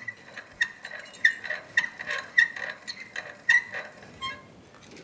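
Hand-cranked piston ring gap filer grinding the end of a Wiseco piston ring, a rhythmic scraping tick about three times a second with each turn of the crank, stopping near the end. The ring's end gap is being filed open toward the 16-thousandths top-ring gap that Wiseco calls for.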